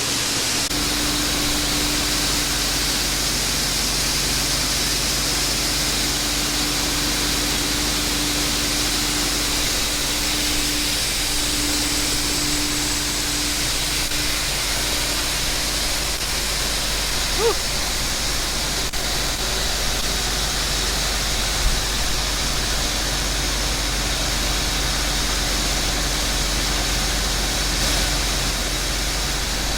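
Farm machinery, a tractor driving a grain auger, running steadily with a constant low hum and a steady whine through the first half. Two brief knocks come partway through.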